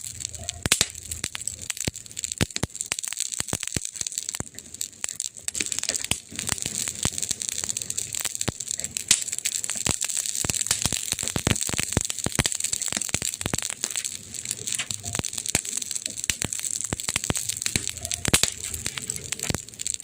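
Fire crackling: a constant stream of irregular sharp pops and snaps over a steady hiss.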